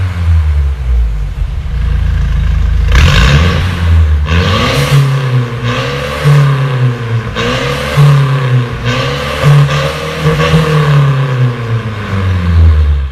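Mercedes-Benz E200 coupe running through an aftermarket Fi Exhaust valvetronic cat-back system with a catless downpipe, with the exhaust valves switched open. It idles steadily at first, then is revved in a series of about six quick blips, each rising and falling in pitch, from a few seconds in.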